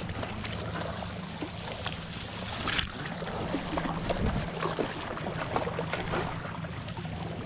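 Small waves lapping and trickling against a rocky lakeshore, with a steady high-pitched tone running through it and one sharp knock about three seconds in.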